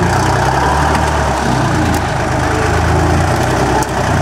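A large engine running steadily at a low idle.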